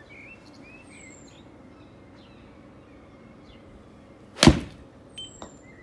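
A golf club striking a ball off a hitting mat on a full 9-iron swing: one sharp crack about four and a half seconds in. Two much fainter knocks follow about a second later.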